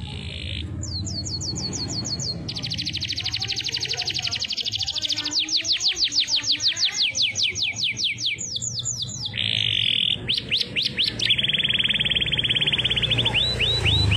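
Domestic canary singing a long, varied song in siren-style phrases. It runs from rapid trills of repeated notes to series of quick downward-sweeping whistles and buzzy rolls, changing phrase every second or two.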